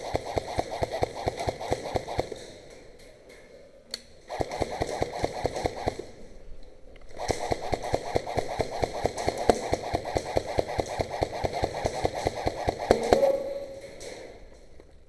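Airsoft gun firing on full-auto in three long bursts, a fast, even rattle of shots; the last and longest burst starts about seven seconds in and lasts around six seconds.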